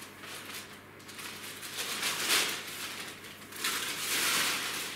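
Plastic shopping bag rustling and crinkling as a string of Christmas lights is pushed into it, in irregular bursts, loudest about two seconds in and again near the end.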